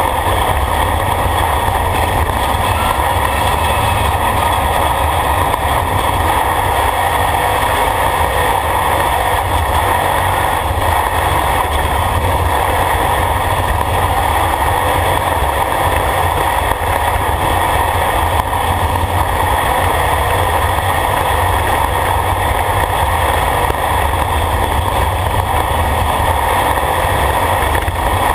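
Off-road race vehicle's engine running steadily at speed, heard from inside its open, roll-caged cockpit as a loud, even drone mixed with road noise.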